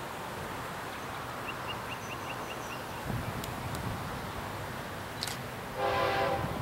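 A distant train's locomotive horn sounds near the end as the train approaches. Before it there is a low steady outdoor background with a quick run of about six bird chirps.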